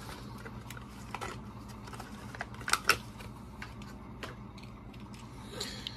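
Scattered light clicks and crackles of a Hot Wheels blister pack being opened, plastic bubble and cardboard card, with the sharpest snap about three seconds in.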